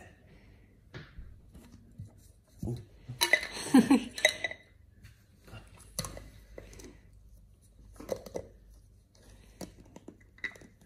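Alaskan Malamute pawing, rolling and mouthing a hard plastic cup, with scattered clicks and scrapes of claws and teeth on the plastic. A louder flurry of clatter comes about three to four seconds in.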